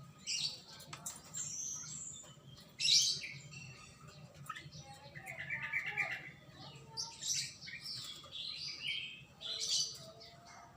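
A black-naped oriole (kepodang) chirping and calling repeatedly in short, high bursts, with a quick trill about halfway through.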